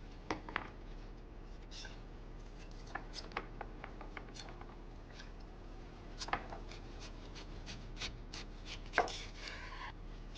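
Faint food-prep sounds of kohlrabi being cut and peeled: scattered light knife clicks and scraping over a steady low hum.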